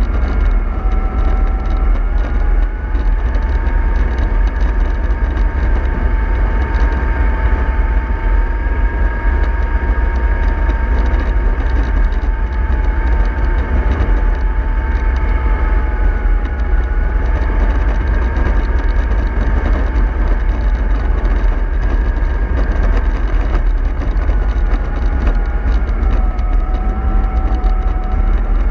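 Bus running steadily: a low rumble with a whine whose pitch slowly drifts up and down.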